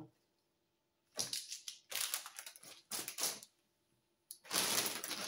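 Plastic shopping bag rustling and crinkling as a hand rummages in it. A few short crinkles come first, then steady rustling from about four seconds in.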